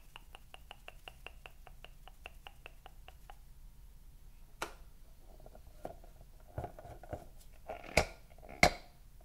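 Fingers tapping quickly on inflated rubber balloons, a run of light taps about five a second, then rubbery squeaks and scattered knocks as a balloon is grabbed and squeezed, ending in two sharp snaps near the end, the loudest sounds.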